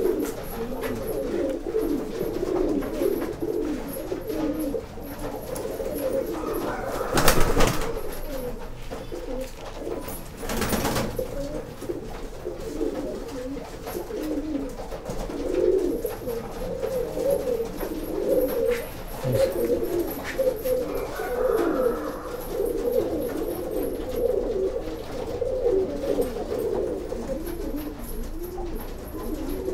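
Domestic pigeons in a loft cooing continuously, many low coos overlapping. Two short bursts of noise stand out, about seven and eleven seconds in.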